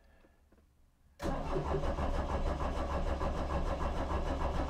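Starter motor cranking a VW 1.9 TDI (ALH) four-cylinder diesel, starting suddenly about a second in and turning over with an even, rhythmic pulse without catching. The injector lines are being bled: they are loose at the injectors and the accelerator is held to the floor.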